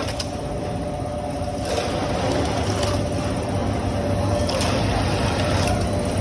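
Saree screen-printing machine running, a steady mechanical hum with a constant higher-pitched tone over it and a few faint clicks, as it carries the cloth forward under the printing screens.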